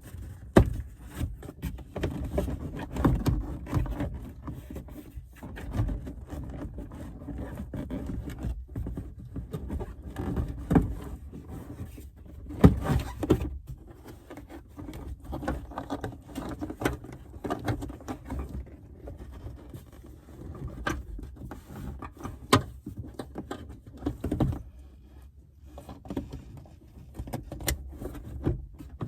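Hands refitting a car's plastic trunk trim panel: irregular clicks, knocks and rustling as it is pushed and fastened back into place.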